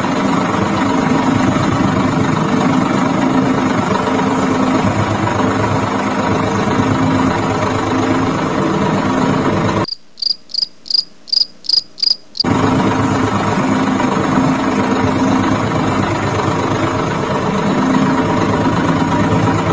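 The small electric motor of a homemade miniature tractor running steadily. About ten seconds in, the motor sound cuts off sharply for a couple of seconds while seven short, high chirps sound, about three a second. Then the motor sound returns.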